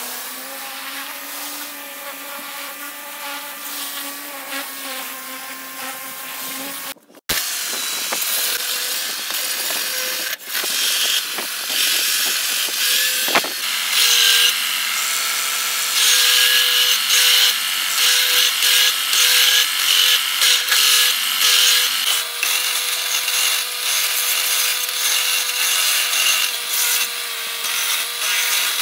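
Electric power tools working wooden fence posts: a motor spins up and runs steadily for about seven seconds. After a brief break comes a louder stretch of an electric sander running against the wood, with a higher steady whine and rough scraping.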